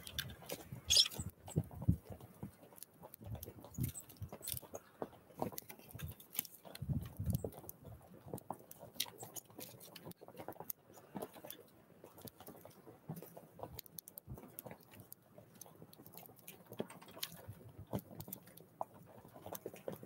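Eurasian tree sparrow pecking seed on a wooden feeder tray: irregular light taps and scratches on the wood, with a few low knocks now and then.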